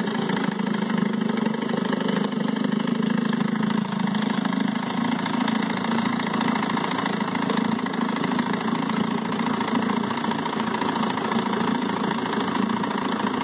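1958 Johnson QD19 10 hp two-stroke outboard idling smoothly and steadily in gear, its propeller churning the water in a test tank.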